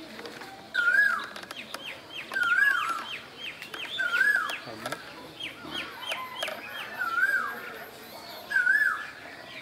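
Asian koel calling: a repeated rising-then-falling two-note "ku-hu" call, about six times, one every second and a half or so. Between the calls runs a rapid series of short, high, falling notes.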